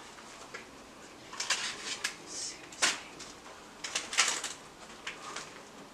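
Light knocks and scuffs in a few short clusters: about a second and a half in, near three seconds, around four seconds and again around five seconds.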